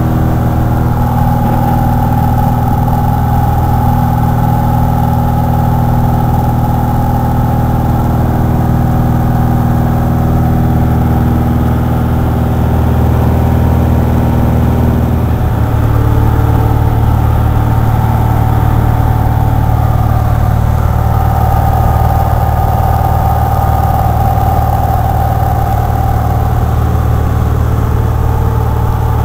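Cessna light aircraft's piston engine and propeller heard inside the cabin in cruise: a loud, steady drone whose tone shifts a little about halfway through.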